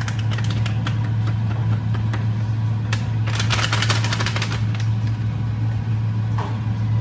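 A steady low hum, with scattered clicks and a rapid clatter for about a second a little past halfway, typical of a utensil knocking and scraping in a cooking pot.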